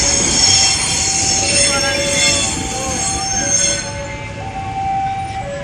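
A train running past, its wheels squealing high and steady over the rumble; the squeal fades out about four seconds in. Two electronic tones keep alternating throughout.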